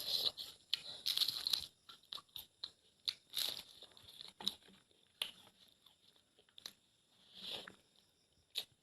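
A person eating close to the microphone: crunchy bites and chewing with many short clicking mouth sounds, and louder crunching bursts near the start, in the middle and near the end.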